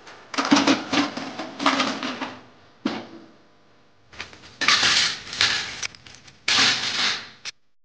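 Metal kitchen vessels clattering and knocking as they are handled and set down, in four short bursts of rattling with quieter pauses between.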